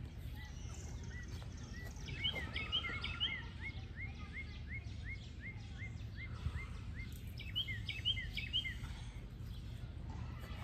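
A bird singing a run of short repeated chirps, about two a second, with two quicker bursts of higher notes about two and eight seconds in, over a steady low background rumble.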